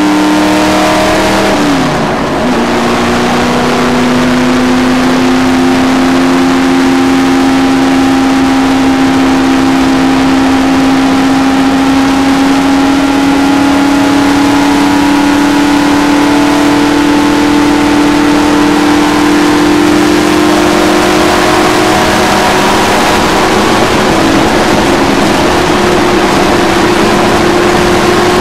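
A stock car's V8 engine running hard at speed, heard from inside the car. The engine note briefly drops about two seconds in, then climbs slowly and steadily as the car picks up speed around the oval.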